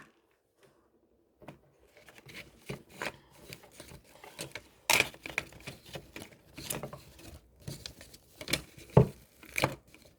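Objects being handled at close range: irregular clicks, taps and rustling, with sharper knocks about halfway through and near the end.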